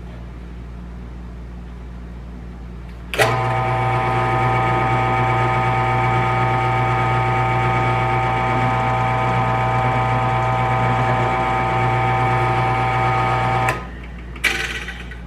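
Drill press switched on about three seconds in, its motor running with a steady whine for about ten seconds while drilling the tap hole for a 1/4-20 thread through metal, then switched off. A short clack follows about a second later.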